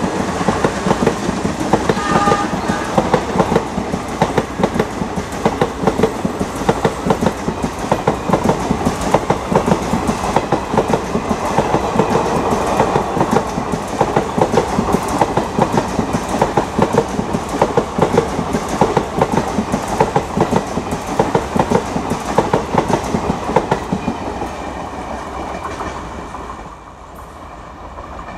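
Indian Railways passenger coaches running past close by, their wheels clattering in a quick, steady clickety-clack. The sound fades away over the last few seconds as the tail of the train draws off.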